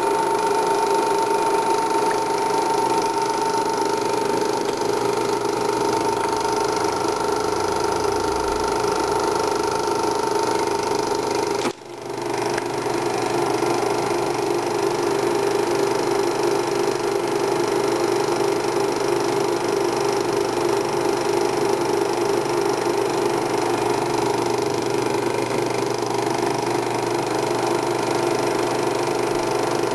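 Eumig S 932 Super 8 sound projector running: a steady mechanical whir and hum from its motor, fan and film transport. The sound drops out for a split second a little before halfway, then goes on as before.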